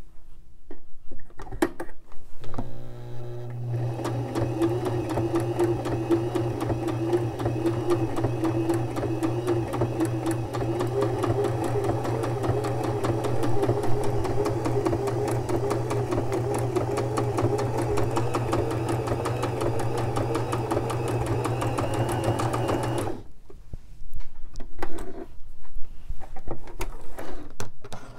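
Electric sewing machine stitching a stretch stitch through stretchy lycra fabric. The motor winds up about two seconds in, then runs steadily with rapid, even needle strokes and stops about five seconds before the end. A few rustles and clicks follow.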